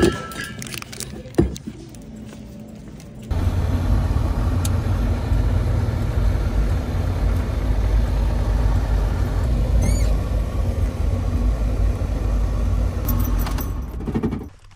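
Land Rover Defender's engine running at idle, a steady low rumble heard from inside the cab. It starts suddenly about three seconds in, after a quieter stretch with a couple of sharp clicks.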